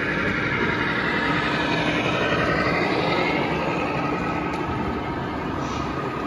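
1/14-scale radio-controlled semi truck driving under load, a steady drivetrain whine that drifts slightly up and down over a constant rumble.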